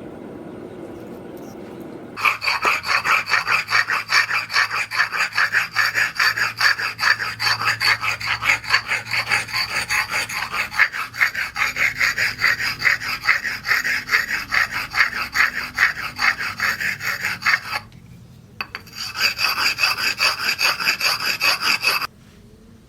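Hand file or rasp scraping in quick back-and-forth strokes, about four a second, during hand finishing of a forged axe. The strokes start about two seconds in, pause briefly near the end, then run on for a few more seconds before stopping.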